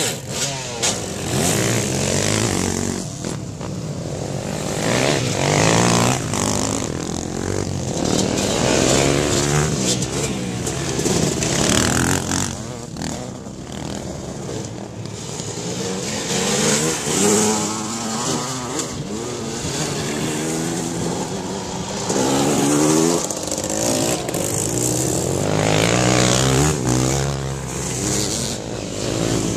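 Several dirt bike engines revving hard as the bikes pass one after another through a corner, each engine note rising and falling as it accelerates, with the loudness swelling and fading as each bike goes by.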